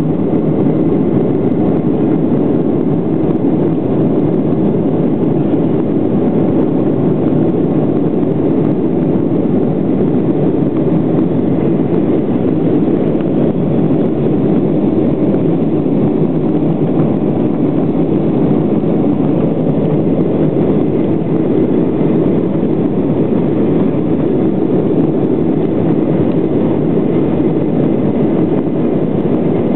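Steady cabin noise inside a Boeing 737-800 in flight: the CFM56 engines and the airflow heard through the fuselage as an even, unchanging rumble.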